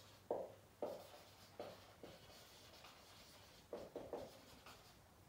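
Marker pen writing on a whiteboard: a series of faint, short strokes at irregular intervals as a word is written.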